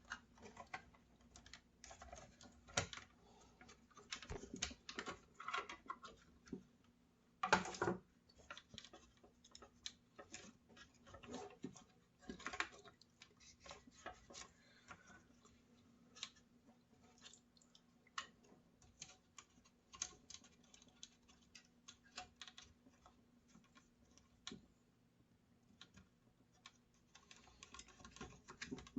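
Faint, irregular clicks and taps of small plastic parts and wiring being handled and pressed into the Skil 1825 router's plastic housing, with one louder knock about seven and a half seconds in.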